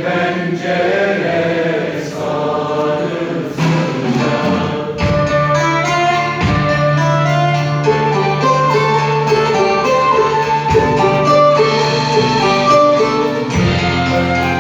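Live orchestra playing a Turkish song, with voices singing over it for the first few seconds, then the instruments carrying the melody over a steady beat.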